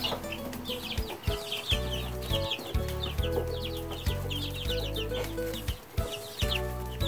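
A brood of three-week-old brown laying hen chicks peeping constantly, many quick downward-falling peeps a second, over background music with sustained low chords.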